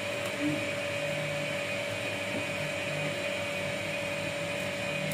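Industrial sewing machine's motor humming steadily, with several short low runs as it stitches in brief spurts.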